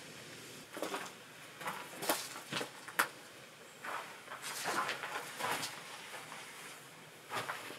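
Footsteps crunching and rustling irregularly through leaf litter and strips of bark on the forest floor, with a few sharper cracks about two and three seconds in.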